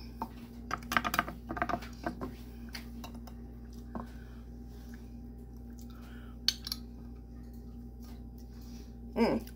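Scattered light clicks and taps of a bottle of barbecue sauce knocking against a small plastic container as the thick sauce is poured and shaken out. The taps come in a busy cluster over the first two seconds, then a few single taps later, over a low steady hum.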